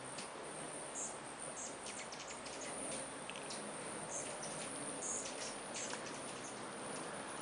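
A crowd of rufous and Anna's hummingbirds buzzing around a feeder: a steady hum of many wings, like a swarm of bees, with scattered short high chips and brief buzzy trills.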